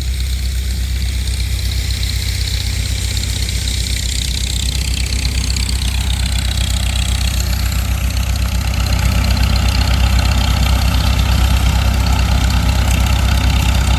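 Grain auger running steadily, loading corn into a truck: a constant low machine hum with a rushing sound above it, a little louder from about nine seconds in.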